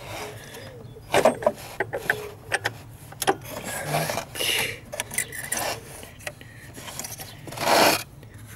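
Irregular metallic clicks, scrapes and rubbing of hand tools as a 24 mm deep socket is worked onto the engine's oil pressure switch, with a louder scrape near the end.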